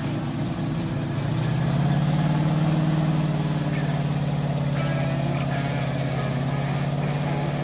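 Off-road vehicle engine running, its revs rising slightly about a second in and then holding steady.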